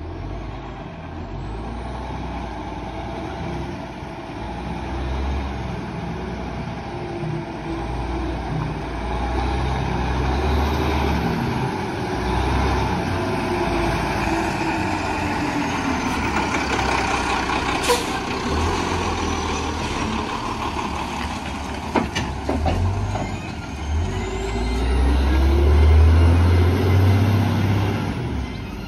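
Autocar WX garbage truck's diesel engine running as the truck drives by, revving up and down, loudest near the end as it pulls away. A couple of short, sharp air-brake hisses partway through.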